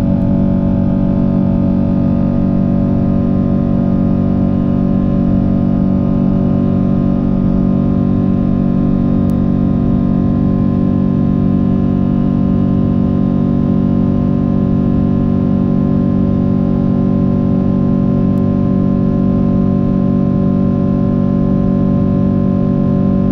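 Rolls-Royce Trent 892 turbofan of a Boeing 777-200ER at climb thrust, heard from inside the cabin beside the engine: a loud, steady drone made of many held tones that does not change in pitch.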